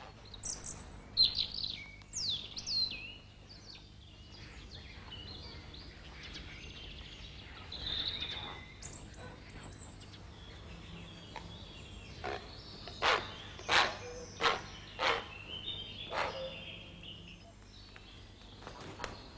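Birds calling. Thin, high chirps and whistles sound in the first few seconds and again around 8 s. Then comes a series of about six short, harsh calls, some two-thirds of a second apart, from about 12 to 16 s.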